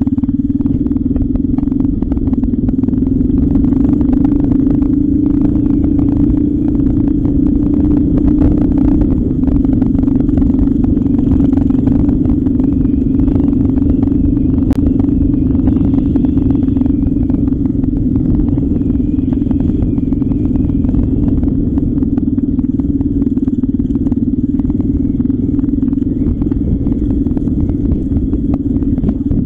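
Trail motorcycle engine running at a steady pitch while riding a rough gravel track, over a continuous rough low rumble.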